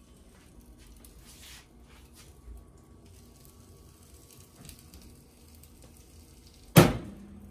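Faint short hisses of aerosol cooking spray going onto a pan, then one sharp, loud knock of something hitting hard near the end.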